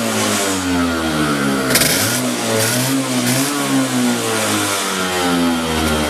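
Go-kart engine running, its pitch drifting gently up and down, with no abnormal noise according to the seller.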